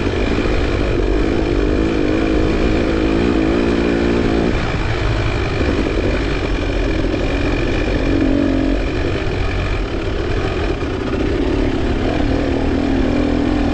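Dirt bike engine running under throttle during a cross-country race, heard from the handlebars, its pitch rising and falling with the throttle for the first few seconds and then holding steadier. A heavy low rumble from wind and rough ground runs under it.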